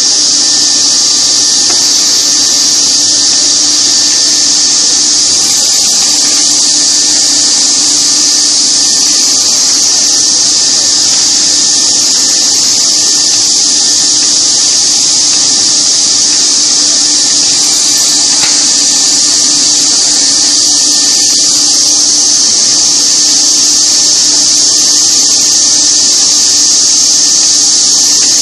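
Canvas stretcher-bar cutting and forming machine running steadily, its cutter motors and dust extraction giving a loud, constant high-pitched hiss with a steady hum beneath.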